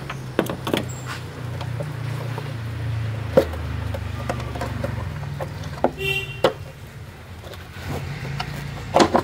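Plastic clicks and knocks of hands unclipping and lifting off a Suzuki Celerio's air filter housing, the sharpest knock about a third of the way in and two more near the end. A low hum sits underneath and fades about halfway through.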